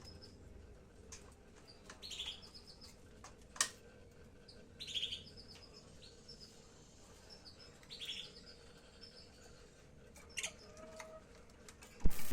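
Lovebirds chirping: short bursts of quick, high chirps every few seconds. There is a sharp click about three and a half seconds in, and loud knocks right at the end.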